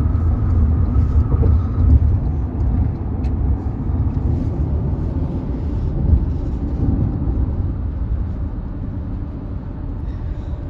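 Low, steady rumble of a vehicle that slowly fades.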